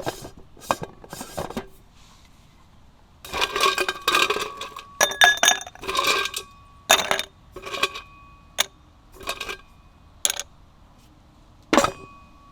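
Metal cookware and utensils clinking and clattering against each other in a string of separate knocks and short rattles. Several strikes leave a brief ringing tone.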